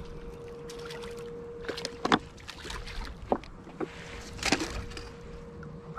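Water splashing and sloshing, with a few sharp knocks and clicks scattered through, over a faint steady hum.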